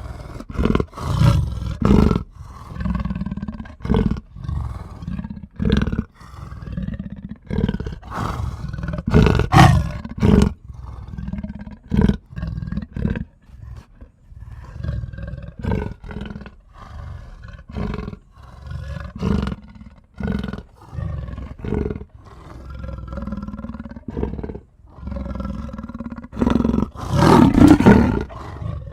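A big cat roaring and growling: a long series of rough calls and grunts with short pauses between them, the loudest near the end.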